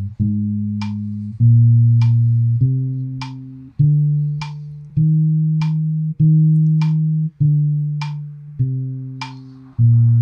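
Fender Precision Bass playing a major scale in half notes, one long sustained note about every 1.2 s, climbing and then coming back down. A metronome click falls midway between the notes, on beats 2 and 4, while the bass takes beats 1 and 3.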